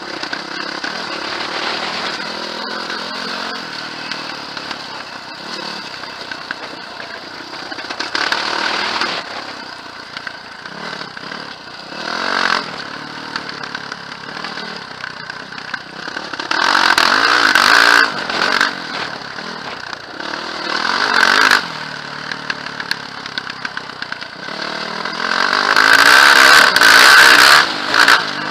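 Quad bike (ATV) engine running under way on a rough track, the throttle opened in several surges, the longest and loudest near the end.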